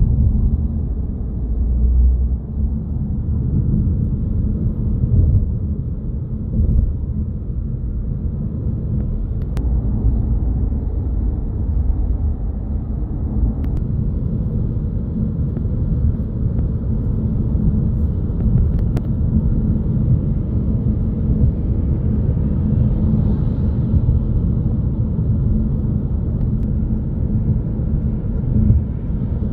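Steady low rumble of tyre and engine noise heard from inside a moving car's cabin at highway speed.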